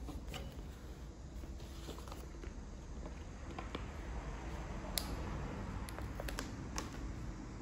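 Light handling sounds as hands work with a carbon-fibre drone arm and a sticker sheet: faint rustling and a few sharp clicks, the clearest near the end, over a steady low hum.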